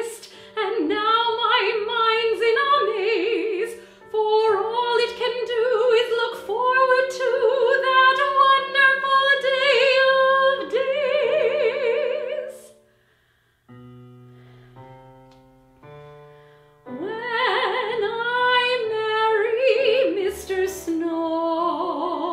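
A woman singing in a classical, operatic style with wide vibrato over an instrumental accompaniment. A little past halfway the voice stops for about four seconds, leaving the accompaniment alone, then comes back in.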